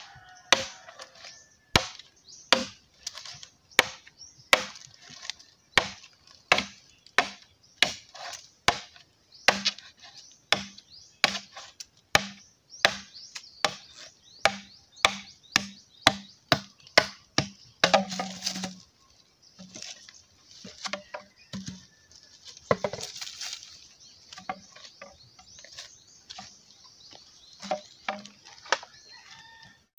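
Machete blade chopping into a green bamboo pole, sharp strikes about one to two a second. The strikes thin out to a few scattered blows in the last third.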